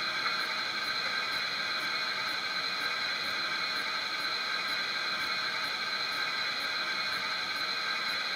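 Model LNER P2 steam locomotive's DCC sound decoder playing a standing steam engine's steady hiss through the model's small speaker, with a faint quick ticking underneath.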